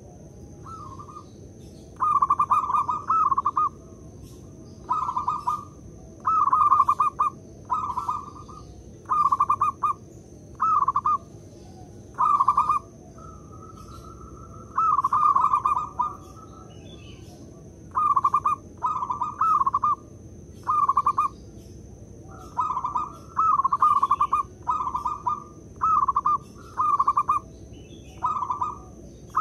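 Zebra dove (perkutut) cooing its song over and over: short phrases of quick, stuttering coo notes, roughly one phrase every one to two seconds with brief pauses between. A faint steady high whine runs underneath.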